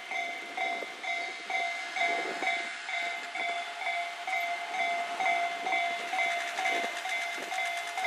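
Japanese railway crossing warning bell ringing in a rapid, steady repeating chime, the signal that the crossing is closed for a train. Underneath it a passing train's wheels clack on the rails.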